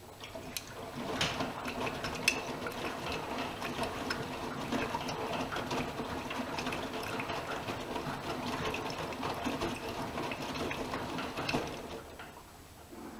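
AEG Öko-Lavamat Lavalogic 1600 front-loading washing machine taking in water: a splashing rush of water into the drum that starts suddenly and stops about twelve seconds later.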